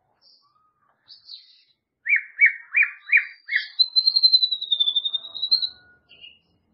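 White-rumped shama (murai batu) singing: a few faint high notes, then a row of five quick down-slurred whistles, then one long wavering high whistle held for nearly two seconds.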